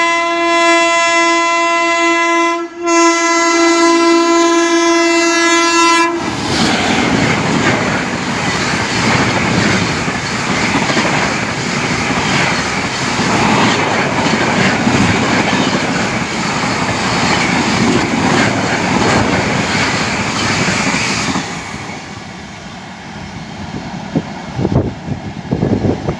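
Tejas Rajdhani Express passing through at speed: its locomotive horn sounds twice, a shorter blast then a longer one, and then comes a loud rush of wheels and coaches on the rails for about fifteen seconds that dies away, with a few knocks near the end.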